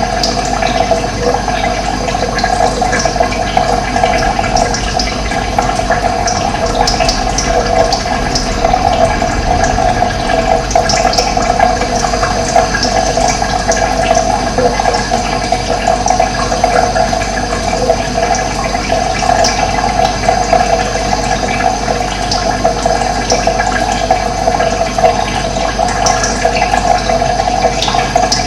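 Steady rush of running water, with short high bird chirps scattered through it.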